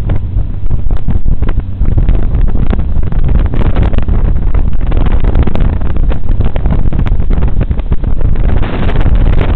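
Jet boat running at speed up a river, its engine and rushing water heard under heavy wind buffeting on the microphone.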